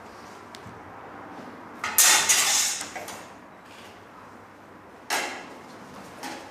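Steel practice swords and bucklers clashing and scraping against each other twice: a sharp hit about two seconds in that slides on for about a second, and a shorter one about five seconds in.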